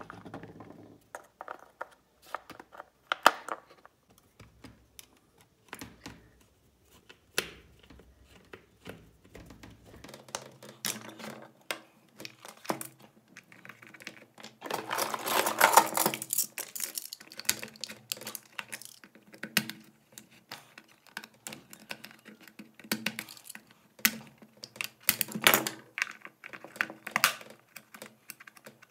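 Irregular plastic clicks, taps and knocks as the parts and plastic case of a 12 V portable tyre inflator are handled and fitted back together, with a few seconds of denser scraping and rustling about halfway through.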